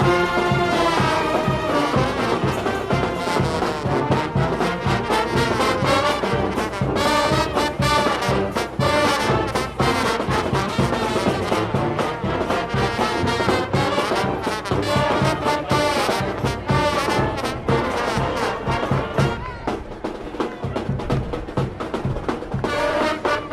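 Brass music playing continuously, with trombones and trumpets carrying moving melodic lines over a steady low pulse.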